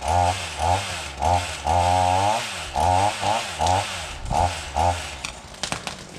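Chainsaw revved in quick bursts, its engine rising and falling in pitch about a dozen times before it stops about five seconds in. A few sharp clicks come near the end.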